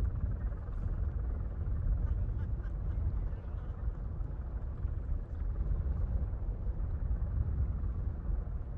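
Steady low rumble of outdoor background noise, with no sudden bang or crash.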